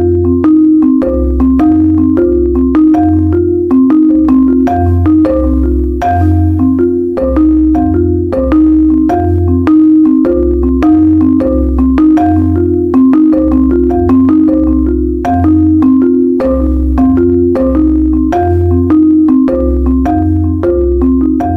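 Background music: a repeating melody of short struck notes over a steady, pulsing bass line.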